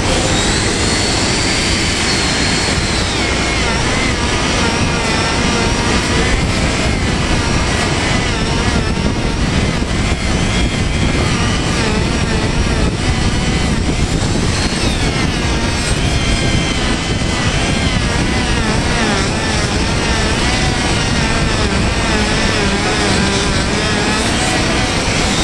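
Handheld electric grinder with a small buffing wheel running against the rubber of a conveyor belt, roughening the surface for a splice. Its motor whine wavers up and down as the wheel is pressed and moved, over a loud steady noise.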